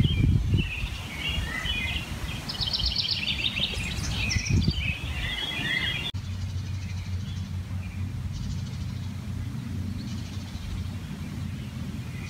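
Songbirds chirping and singing in quick clusters for the first six seconds, over a few low thumps. The birdsong cuts off suddenly about six seconds in, leaving a steady low hum.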